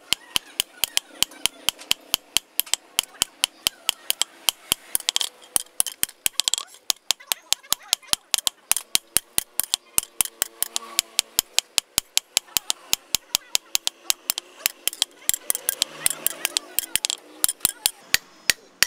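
Hammer blows on leaf-spring steel at an anvil: quick, even strikes, about four a second, with faint voices underneath.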